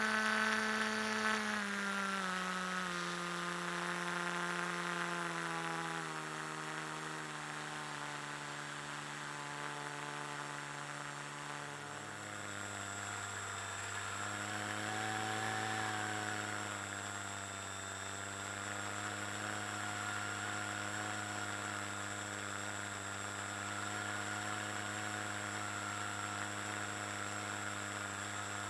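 The motor of a radio-controlled model glider running with a steady hum. Its pitch steps down several times over the first dozen seconds as it is throttled back, then holds, wavering slightly up and down near the middle.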